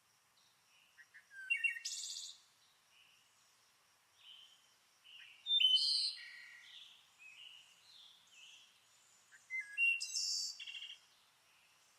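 Songbirds singing: three bouts of quick, varied chirps and trills, the loudest near the middle, with short quiet gaps between them.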